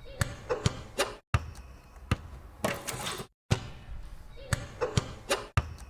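Basketball being dribbled: sharp bounces, a few in each short pass, with the recording repeating about every two seconds and brief silent breaks between passes.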